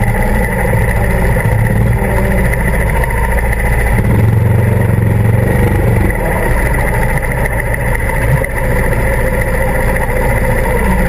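Go-kart motor running at speed, heard from on board the kart, steady and loud, growing stronger between about four and six seconds in, then easing back.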